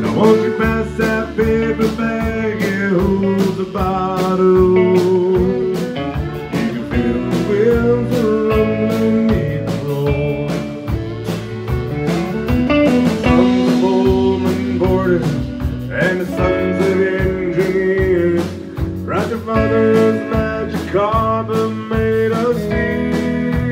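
Live country band music: acoustic guitar, electric bass and drums playing a steady beat.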